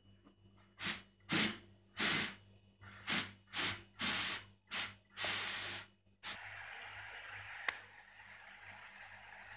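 Gravity-feed paint spray gun, fed by a homemade compressor's gas-cylinder air tank, hissing in about eight short blasts as the trigger is pulled again and again, the last one longest. From about six seconds on a steadier, fainter hiss runs, with a single click near the end.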